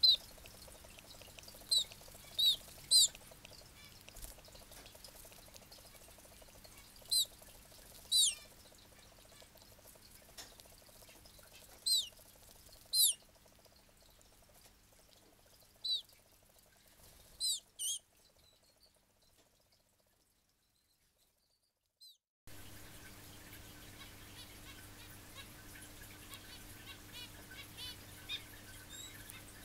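Hand-reared red canary chick giving short, high cheeps that fall in pitch, singly or two or three close together, while being fed from a syringe: food-begging calls. About two-thirds of the way through, a few seconds of silence, then fainter cheeps over a low steady hum.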